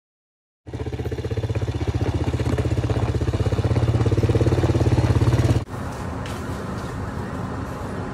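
ATV (four-wheeler) engine running close by, starting abruptly a little way in and growing louder, then cutting off suddenly; a quieter steady rumble follows.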